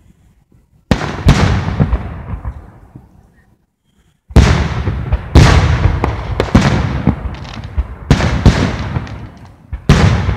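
Aerial firework shells bursting overhead: a string of sudden booms, each trailing off in a rumble. After the first pair there is a short lull, then the booms come more rapidly.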